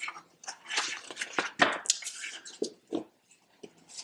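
Pages of a picture book being handled and turned: a run of short, irregular papery rustles and crackles.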